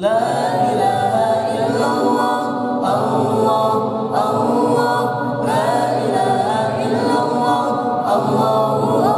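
A choir of voices singing unaccompanied, in sung phrases a few seconds long.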